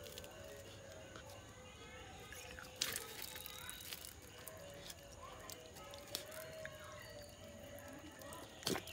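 Labrador puppy licking and mouthing a garden water tap, faint wet licking and dripping, with a sharp click about three seconds in and another near the end.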